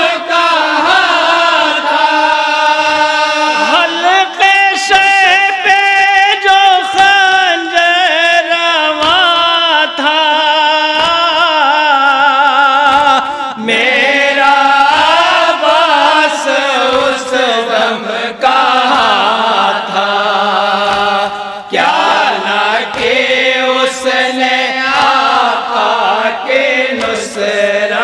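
Several men chanting a noha, a Shia lament in Urdu, together: long held melodic lines with a heavy wavering vibrato, voices only without instruments.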